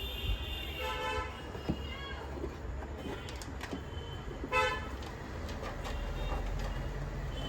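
Vehicle horns giving several short toots, the loudest about halfway through, over a steady low traffic rumble.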